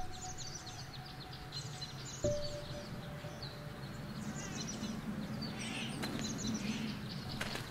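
Small birds chirping and twittering continually, over background music of single struck notes that ring out and fade slowly. A second, lower note is struck about two seconds in.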